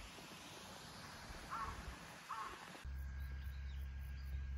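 Two short caws from a crow, about three-quarters of a second apart, over a faint hiss. Then the sound cuts abruptly to a steady low hum with faint, high bird chirps.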